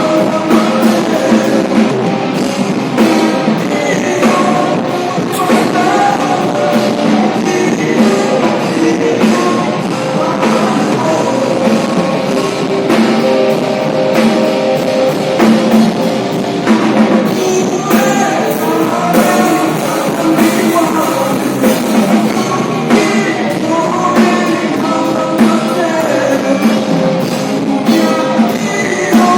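Rock-style music with a singing voice over drum kit and electric guitar, played continuously with a steady beat.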